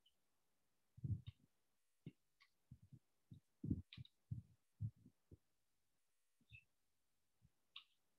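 Faint, irregular low taps and thumps, about a dozen over several seconds, with a few faint high clicks among them: a stylus writing on a tablet.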